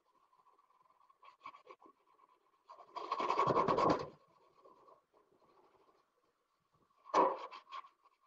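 Sponge loaded with cleaning clay scrubbing greasy metal inside a gas grill. A loud burst of quick back-and-forth strokes lasts about a second a few seconds in, and a shorter burst comes near the end, with fainter rubbing in between.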